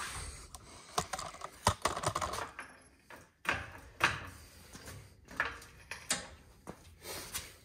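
Irregular metallic clicks and knocks as a coilover strut is worked up into the wheel well and its mounting hardware is fitted by hand.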